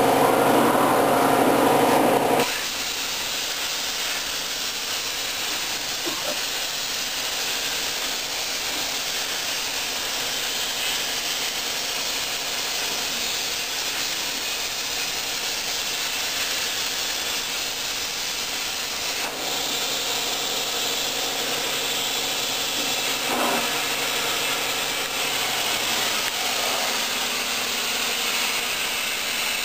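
Miller 375 Xtreme air plasma torch on a CNC table cutting thin aluminum sheet: a steady hiss of the arc and air jet. For the first two and a half seconds a louder sound of several steady tones is heard, which stops abruptly.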